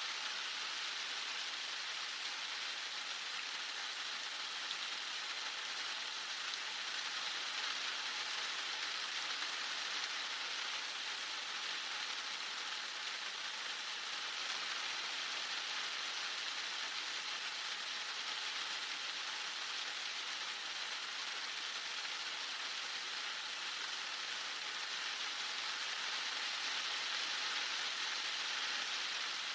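Heavy rain falling steadily, a constant even hiss of rain on surfaces.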